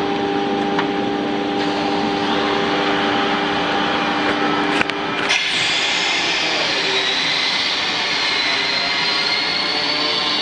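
Solid-surface thermoforming machine running with a steady hum and whir. About five seconds in there is a click, then a loud hiss of air as its pneumatic valve is turned, the hiss slowly rising a little in pitch.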